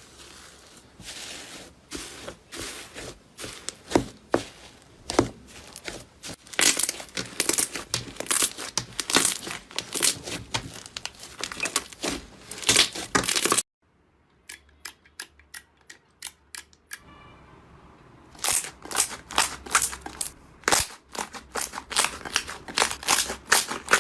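Slime being squeezed and stretched by hand, giving rapid crackling and popping clicks. It cuts off suddenly a little past halfway, comes back as a few quieter pops, then crackles densely again.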